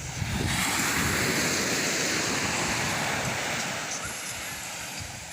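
Sea surf: a wave rushes in about half a second in and slowly fades away.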